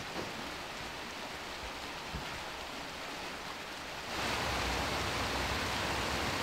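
River water flowing, a steady rush that becomes clearly louder about four seconds in.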